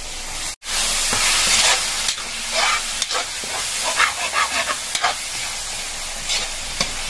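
Ground beef frying in hot oil in a wok with onion and garlic, sizzling steadily while a metal spatula scrapes and stirs it. The sizzle breaks off for an instant about half a second in and comes back louder, with a run of scraping strokes through the middle.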